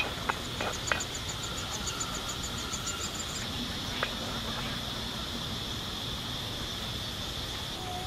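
Insects calling in a steady high drone, with a quick run of ticking chirps over the first three seconds or so. A few light knocks near the start and another about four seconds in.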